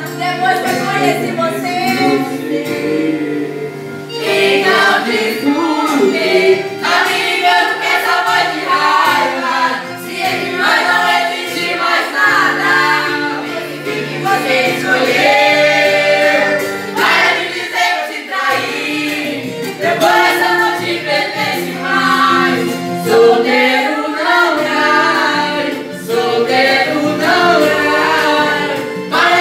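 Amplified singing over backing music through a loudspeaker, a man singing into a corded microphone.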